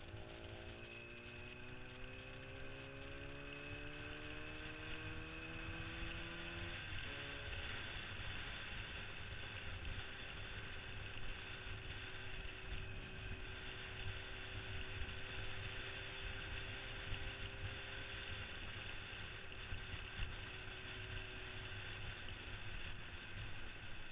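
Yamaha RD400's two-stroke parallel-twin engine pulling under load, its pitch rising for about seven seconds, dropping suddenly at a gear change, then holding steady at cruising speed. Wind rumble on the microphone runs underneath.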